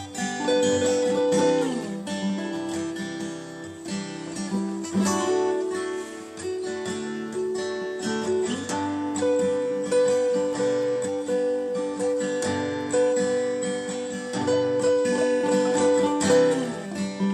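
Acoustic guitar strummed through a series of chord changes, with no singing: the instrumental intro to a song just after it has been counted in.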